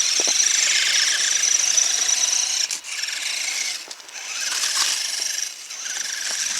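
Electric motor and drivetrain of an Axial SCX10 RC crawler whining as it drives and pushes snow with its plow. The high whine breaks off and picks up again about three times as the throttle is let off and reapplied.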